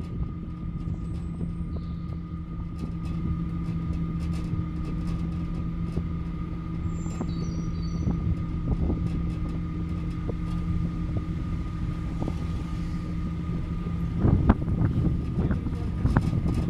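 Aerial cable car cabin running along its cables, heard from inside: a steady mechanical hum with a few held tones over a low rumble, with light clicks and a louder spell of rattling about two seconds before the end.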